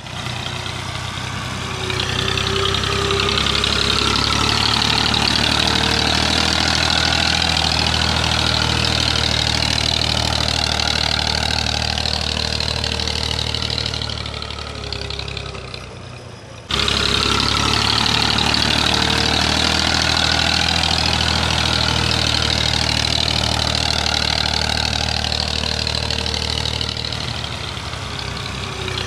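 Massey Ferguson tractor's diesel engine running steadily under load as it hauls a trolley heaped with bricks. The sound dips a little past the halfway mark, then cuts back in suddenly at full level.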